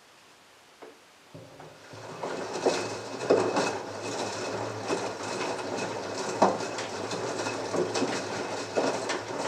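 LG front-loading washing machine starting its drum after a pause in the heating stage of a 40°C wash. The motor hum comes in about a second in, then wet laundry tumbles and sloshes, with irregular thuds and splashes as the clothes fall.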